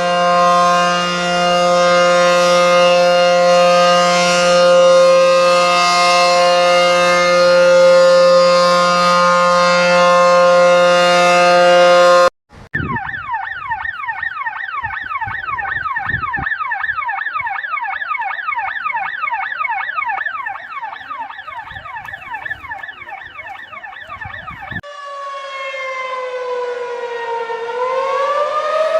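Emergency alert alarm tones played back to back. First comes a loud, steady, dissonant chord of many held tones. After an abrupt cut about halfway through, rapid repeating downward sweeps follow, and near the end a wailing siren tone slides down and then rises again.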